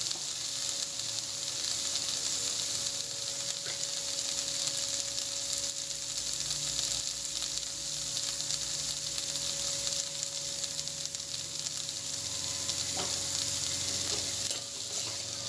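Boiled black chickpeas with onion frying in a little oil in a kadai, sizzling steadily, with a faint scrape of the slotted ladle near the end.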